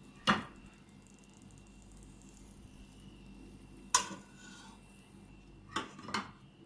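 Kitchenware clinking: four sharp knocks, one just after the start, one about four seconds in and two close together near the end, over a faint steady background hum.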